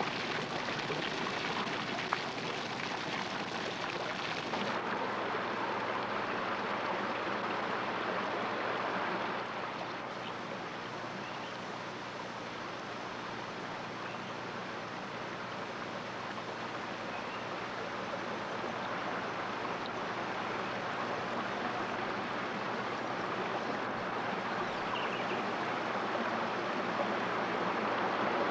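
Steady rush of running water, a little quieter after about ten seconds.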